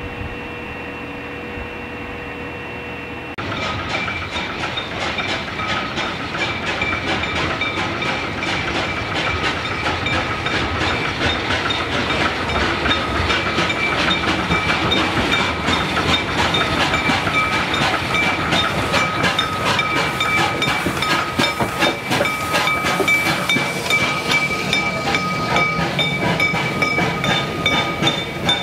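Danish steam tank locomotive 656 and its coaches drawing past along a station platform: steam hiss and a fast rattle of wheels and coaches, with a steady high squeal running under it and the whole getting louder. About three seconds in, the sound jumps up from a quieter steady hum.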